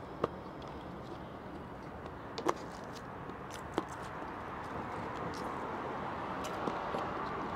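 Crisp romaine lettuce leaves being pulled apart and handled, giving a few short sharp snaps over a steady background hiss.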